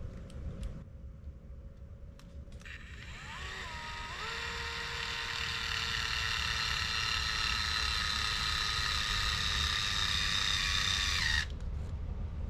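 A small electric motor spinning up over about a second, running at a steady whine for about seven seconds with its pitch sinking slightly, then switching off suddenly.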